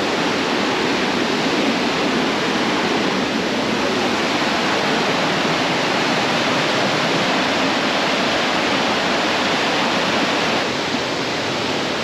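Fast river rushing over rocky rapids, running high with a strong current from the rainy season: a steady, loud rush of water that eases slightly near the end.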